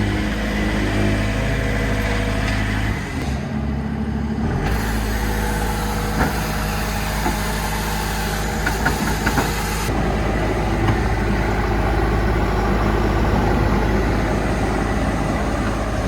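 Diesel engine of a Vögele Super 800-3i asphalt paver running steadily. The sound changes abruptly a few times, and there are a few short clicks in the middle.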